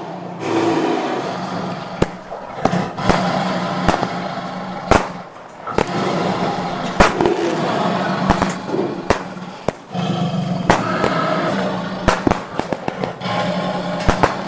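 Fireworks sound effect: sharp bangs at irregular intervals, several close together at times, over continuous crackling and hiss.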